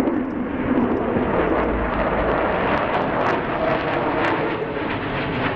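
Jet noise of a B-1B Lancer bomber's four turbofan engines as it flies past overhead: a loud, steady rush with a ragged, crackling edge.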